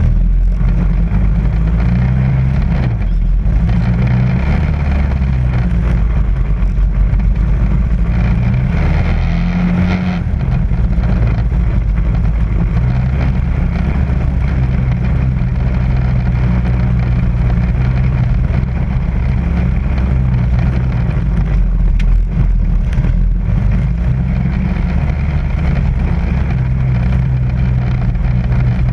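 Quad ATV engine running at low speed on a rough climb, its pitch shifting up and down as the throttle changes, with ride noise over it.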